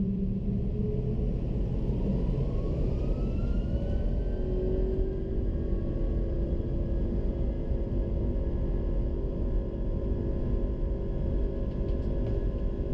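Airbus A330-300's turbofan engines heard from inside the cabin, spooling up: a whine rises in pitch for about three seconds, starting about two seconds in, then holds steady over a heavy rumble, typical of thrust being set for the takeoff roll.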